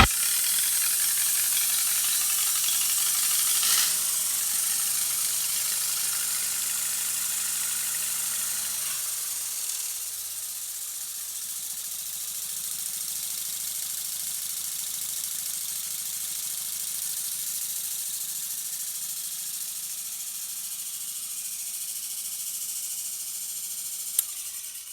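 Lincoln SA-200 blackface welder's four-cylinder gas engine running with a steady hiss and rattle, settling to a lower, quieter speed about nine seconds in as it drops to low idle. A click sounds near the end.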